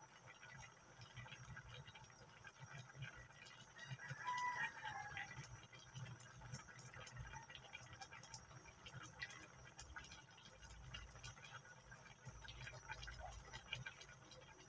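Coconut-milk sauce with crab and squash simmering in an aluminium wok, giving faint scattered bubbling pops. About four seconds in a brief animal call sounds in the background.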